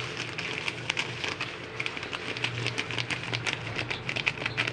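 Ground black pepper shaken from a plastic container over a pot of soup: light, irregular tapping and rattling clicks, over a steady low hum.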